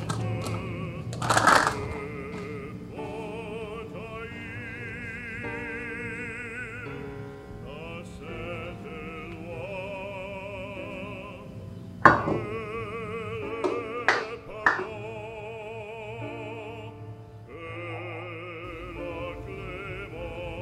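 Background music with a singing voice held in long notes with strong vibrato, broken by a few sharp hits, the loudest about twelve seconds in.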